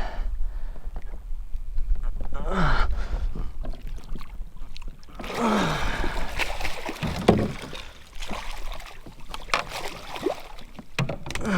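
Water sloshing and knocks against a small boat as a striped bass is netted and brought aboard, with a few sharp clicks and knocks in the later part.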